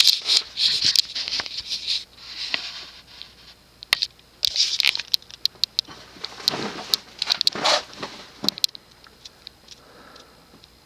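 Short-bladed Casablanca Lanai ceiling fan running at high speed, with its air rushing in uneven swells. Scattered sharp clicks and ticks sound throughout.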